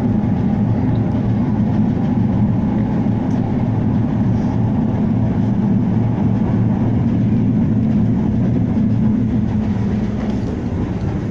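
Blackpool tram 715 running along the street, heard from inside the car: a steady, even rumble of motors and wheels on the rails.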